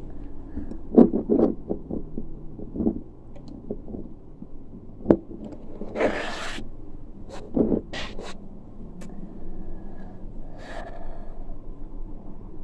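A series of knocks and clicks with a short rustling swish about six seconds in, over a steady low rumble: objects being handled and set down.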